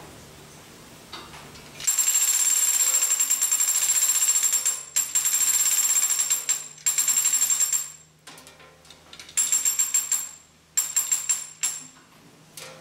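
Manual chain hoist being hauled by its hand chain: the steel chain rattles and clicks rapidly through the hoist, with a bright metallic ring. It comes in several spurts of one to three seconds, starting about two seconds in, with short pauses between pulls.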